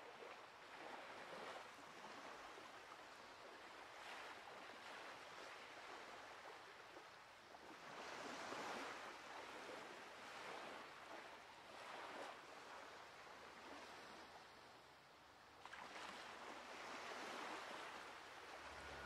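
Faint sea surf: small waves washing onto a sandy beach, swelling and ebbing every few seconds.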